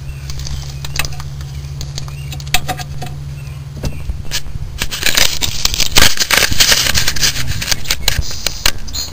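Hand tools clicking and scraping on the metal of a van's rear drum brake while the old wheel cylinder is worked loose. A low steady hum in the first few seconds stops, and then a busy run of quick clicks and scraping takes over and grows louder.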